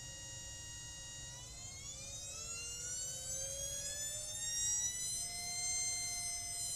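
Sharp ES-FL872 front-loading washing machine's brushed drum motor whining as it speeds up: a steady whine that starts rising in pitch about a second in, then holds at a higher pitch near the end.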